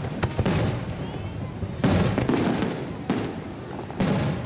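Fireworks shells bursting overhead: a series of sharp bangs, the loudest about two seconds in and again near the end, each followed by crackling and rumbling echo.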